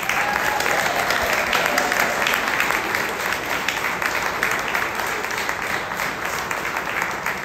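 Audience applauding: a dense patter of many hands clapping that starts at once and eases slightly near the end.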